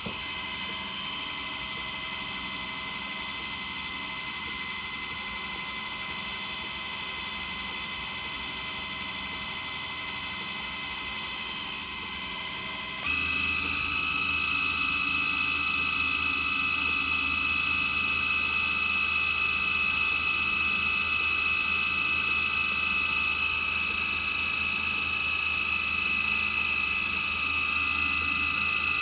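Small electric motor of a mini bench drill press running steadily with a whining hum while drilling a pocket knife pin. About halfway through the sound steps up louder and the whine shifts to a different pitch, then holds steady.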